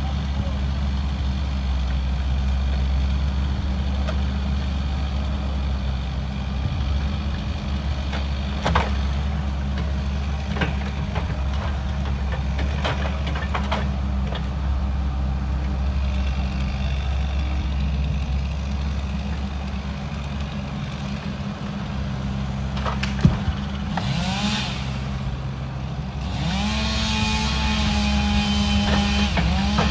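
A 14-ton tracked excavator's diesel engine runs steadily while its hydraulic grapple handles logs, with a couple of sharp knocks. Near the end a second, higher-pitched small engine rises in pitch and holds.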